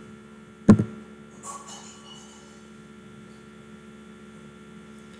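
Steady electrical hum from the recording setup, with one sharp click a little under a second in.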